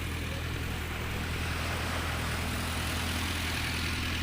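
A steady, low engine hum that holds constant throughout.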